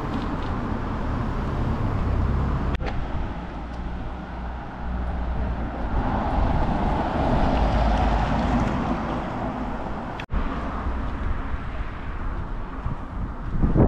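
Outdoor street noise with a car passing on the road, its tyre noise swelling and fading in the middle, over a steady low rumble. The sound breaks off sharply twice where the recording is cut.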